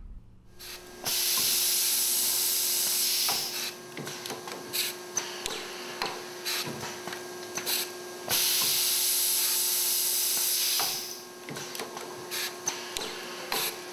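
Electroimpact semi-automatic C-frame riveter cycling through a fastening sequence: two long hisses of compressed air, each about two and a half seconds, starting about a second in and again about eight seconds in. Between them come many short clicks and knocks as the head shifts between its stations, over a faint steady hum.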